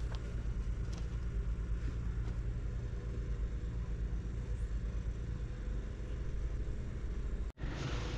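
Wind rumbling on the microphone, a steady low buffeting that wavers in loudness, with a few faint clicks early on and a brief break near the end.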